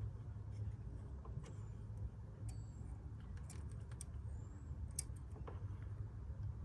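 Scattered small plastic clicks and ticks of hands fitting the power cable connector back onto a car headlamp's xenon bulb holder, over a steady low hum.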